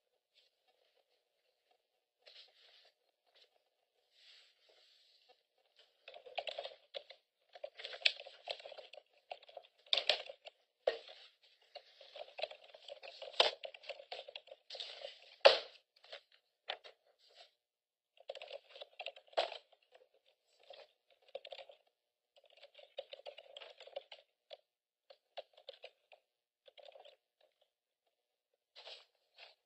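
Paper rustling and handling: sheets being shuffled and turned in irregular bursts with small clicks, busiest through the middle, with one sharper click about halfway through.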